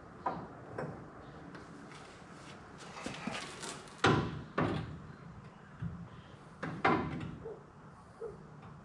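Irregular metal clunks and knocks as a heavy steel suspension part is wrestled and shifted into its mounting on the truck's frame. About eight knocks, the loudest about four seconds in.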